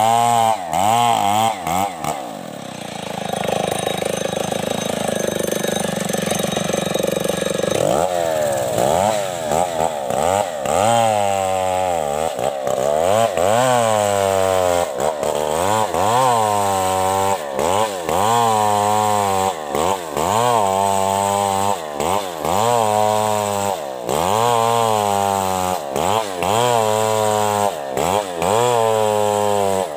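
Two-stroke chainsaw cutting along a coconut palm trunk to rip it into beams. For the first few seconds it runs steadier and lower under load, then from about a third of the way in its engine pitch rises and falls over and over, roughly once a second.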